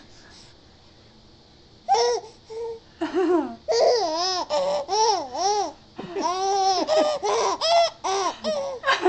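A young infant girl's first laughs: after a quiet start, a string of short, high, rising-and-falling laughing squeals begins about two seconds in and keeps coming.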